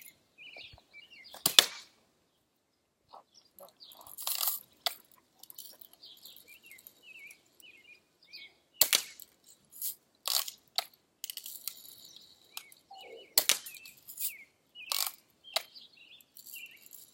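BB gun fired repeatedly outdoors: about eight sharp snaps spaced irregularly, a second or a few seconds apart, with faint bird chirps between them.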